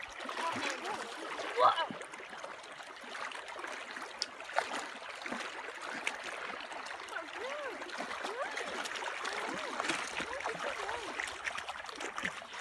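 Shallow river current running and rippling steadily over the shallows. There is a short louder sound about two seconds in and a sharp click a little later.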